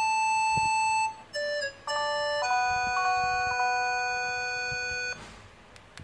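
K-Touch B2020 feature phone's loudspeaker playing a synthesized ringtone: a long held note, a few short notes, then a held chord that cuts off about five seconds in.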